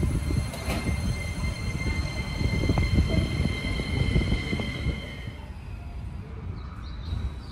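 Keisei 3000-series electric train running along the platform: a low rumble from the running gear with a steady high-pitched wheel squeal that stops about five seconds in.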